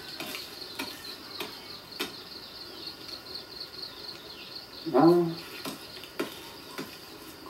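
Insects chirring in a steady high-pitched drone, with scattered faint clicks and a short spoken "ah" about five seconds in.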